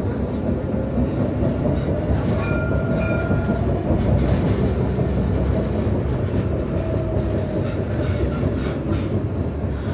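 Jerusalem Light Rail tram riding along the track, with a steady low rumble of wheels on rail. A faint motor whine slowly rises in pitch, then eases.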